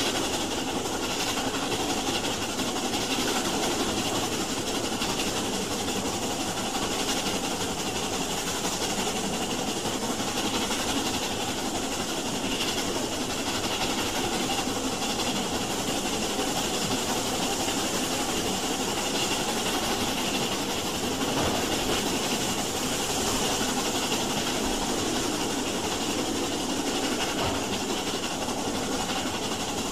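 A steam train running, a steady, even noise with hiss and no distinct separate beats.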